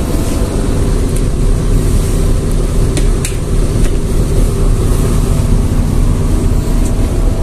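A bus's diesel engine idling with the air conditioning running, heard from inside the cabin as a steady low rumble. A couple of light knocks come about three seconds in.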